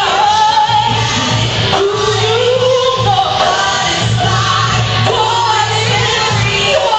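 A woman singing lead into a microphone over a live band with drums, loud and continuous.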